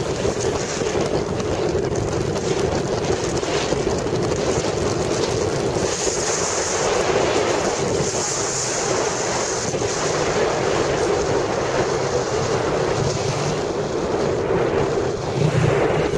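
Wind buffeting the microphone on a moving motorcycle, with the motorcycle's engine running steadily underneath.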